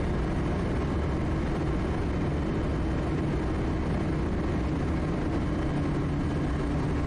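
Quest Kodiak's Pratt & Whitney PT6A turboprop engine and propeller running steadily in flight: an even drone with a faint low hum.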